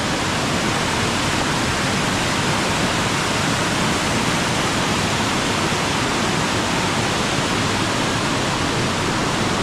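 Loud, steady rush of a waterfall and rapids on the Amnicon River.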